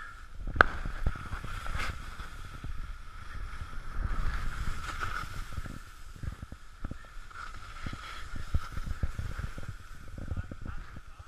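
Skis running over snow on a downhill run: a steady rumble and scrape with many small knocks and clatters, a sharp knock about half a second in, and wind rushing over the action camera's microphone.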